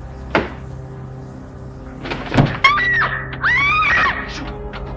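Two dull knocks, then two high cries that rise and fall in pitch, a short one and a longer one, over a low steady music drone.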